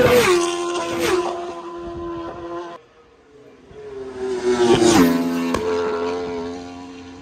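Two Superbike-class racing motorcycles pass at racing speed one after the other. Each engine note drops sharply in pitch as the bike goes by, then holds a high, steady note as it pulls away. The first pass cuts off suddenly near three seconds in; the second goes by about five seconds in and fades toward the end.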